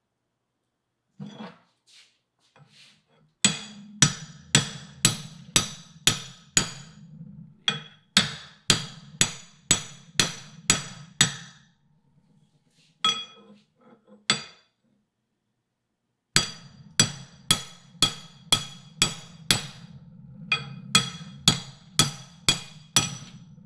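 Hammer blows on a steel plate driving a new kingpin bushing into an early Ford spindle held in a vise. The blows are sharp and ringing, about two a second, in two long runs with a short pause between.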